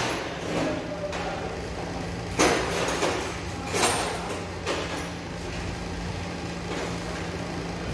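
Steel paintless-dent-repair rod scraping and knocking inside a car's front fender as it is worked against the panel, two short sharp scrapes about a second and a half apart and a fainter one a little later, over a steady low hum.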